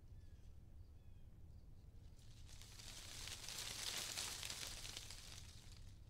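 Nature ambience: a few faint bird chirps in the first second or so, then a gust of wind hissing through leaves that builds to a peak about four seconds in and fades, over a steady low rumble.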